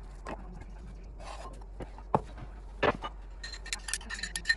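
Vegetable sticks set down on a plate with light taps and a couple of sharper knocks, then, from about three and a half seconds in, a spoon clinking quickly against a glass bowl as a dip is scraped out.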